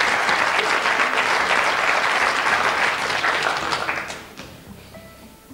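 Studio audience applauding, dying away about four seconds in.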